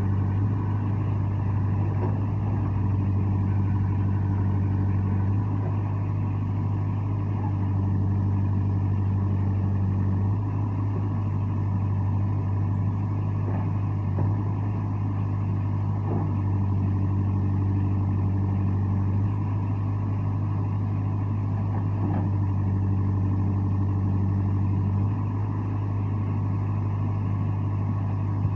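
JCB 3CX backhoe loader's diesel engine running steadily, its note changing slightly every few seconds, with a few faint knocks.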